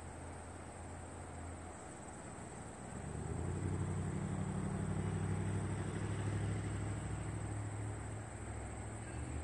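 Low engine rumble that grows louder about three seconds in, holds, and eases off near the end.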